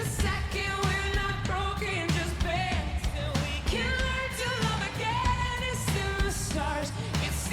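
Background pop song: a sung melody over a steady beat.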